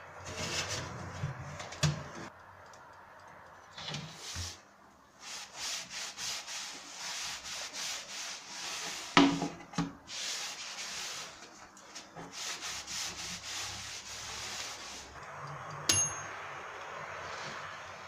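Hand wiping a wooden shelf with a cloth: quick, repeated scrubbing strokes, with a loud knock partway through and a short metallic ding near the end.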